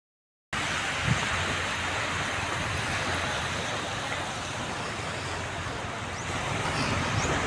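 Gentle surf washing onto a sandy beach, a steady hiss that starts about half a second in, with a low rumble of wind on the microphone underneath.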